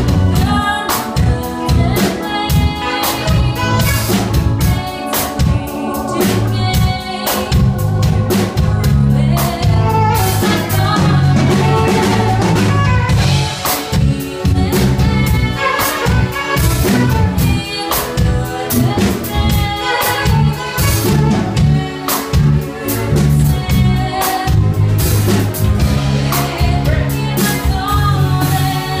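Live band playing a song: a female vocalist singing over a drum kit, bass guitar and electronic keyboard, with a steady drum beat.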